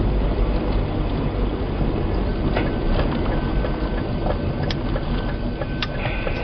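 Vehicle driving along a rough asphalt road: a steady rumble of engine and tyres, with a few light clicks and knocks from bumps in the road.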